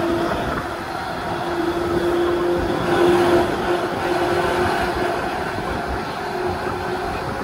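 JR East 185 series electric train heard from on board while running, a steady rumble of wheel and running noise with a faint constant hum.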